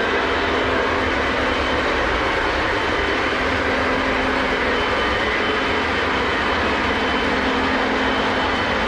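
Lionel O gauge model trains running on the layout: a steady, even rumble and whir of electric motors and metal wheels on track.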